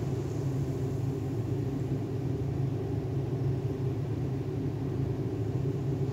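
A steady, unchanging low rumble with a faint hiss over it, with no distinct knocks or splashes.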